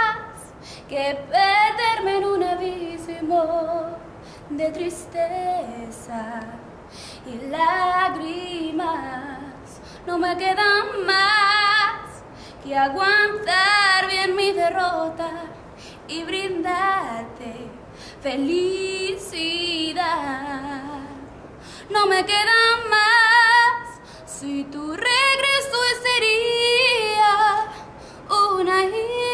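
A young woman singing solo without accompaniment, in phrases of a few seconds with vibrato and short breaths between them.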